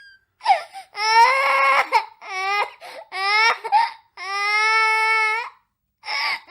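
Baby crying in a string of high wails broken by short gasps for breath; the longest wail comes about four seconds in.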